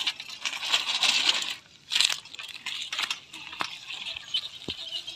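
Bicycle rattling and clicking as it is lifted off the ground and wheeled over dirt, with a steady high hiss underneath.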